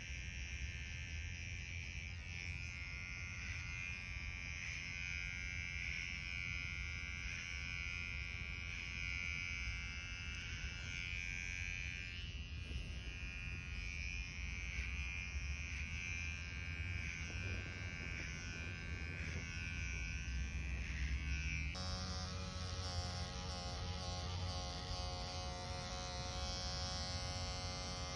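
Electric hair clipper running with a steady buzz. Its tone changes abruptly about three-quarters of the way through.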